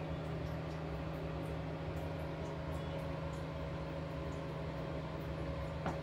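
Steady mechanical hum with a constant low tone, like a fan or household appliance running. A single faint click comes near the end.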